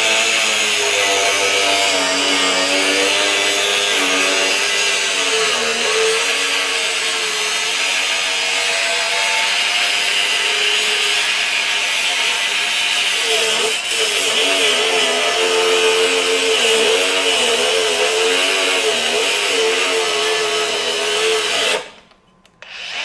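Hercules HCB61P 20V brushless angle grinder cutting through 1-inch rebar with a thin cut-off wheel: a continuous grinding screech over the motor's whine, whose pitch sags and recovers as the wheel loads up in the cut. The grinder cuts well when let run rather than forced. It stops shortly before the end and then starts cutting again.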